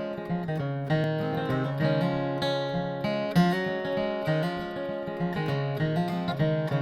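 Acoustic guitar strummed in a steady rhythm through the instrumental break of a slow gospel song, with no singing.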